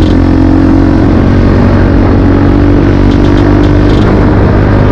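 KTM Duke 250's single-cylinder engine running at steady revs while the motorcycle is ridden along the road.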